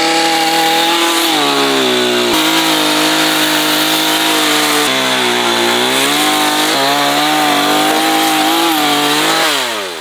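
Two-stroke gasoline chainsaw running at high revs while cutting into a ballistic gel dummy. Its pitch dips and recovers several times as it cuts, then winds down near the end.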